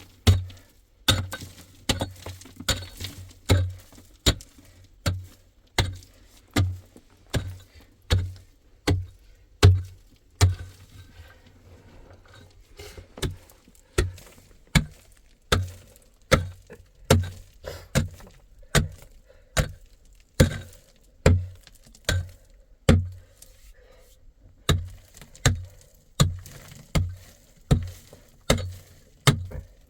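A hand tool struck again and again into hard material, about one blow a second with a couple of short pauses, each blow a sharp knock with a dull thud.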